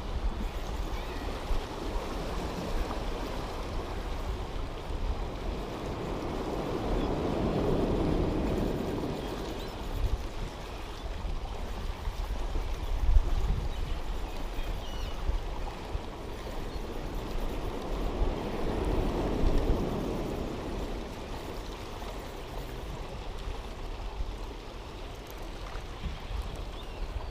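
Sea surf washing in and out, swelling up twice, over a steady low wind rumble on the microphone. One brief thump about halfway through.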